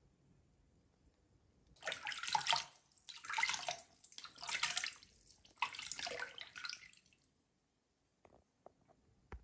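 Water scooped and splashed by hand in a plastic basin, in four separate splashes about a second each between about 2 and 7 seconds in, followed by a few faint drips.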